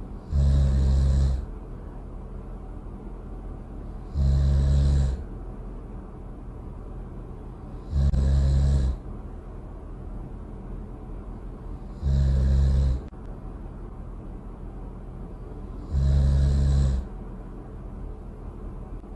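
Loud snoring, one snore about a second long every four seconds, five in all, over a steady low hum.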